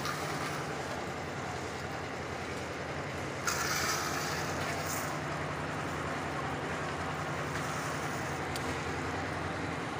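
An engine runs steadily at an even pitch. A louder rushing hiss starts about three and a half seconds in and stops a second and a half later.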